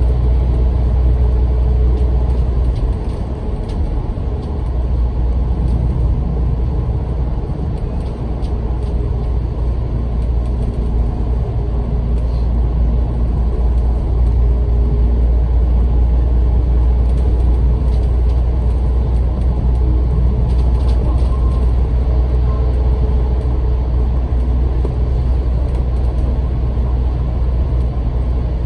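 Bus engine and drivetrain running with a steady deep rumble of road noise, heard from inside the cabin while the bus is under way. The level dips briefly about three to five seconds in, then holds steady.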